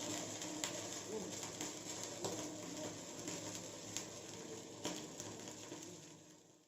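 Faint kitchen background noise with a few light clicks and taps, fading out to silence near the end.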